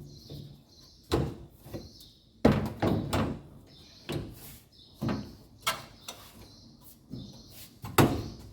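Clunks and knocks of the dryer's sheet-metal front panel and drum being fitted and pushed into place: about seven sharp hits at uneven intervals, the loudest about two and a half seconds in and near the end.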